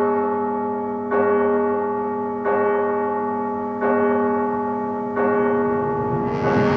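Clock-tower bell striking the hour, one ringing stroke about every second and a half, each note fading slowly before the next; the clock stands at six, so it is striking six o'clock.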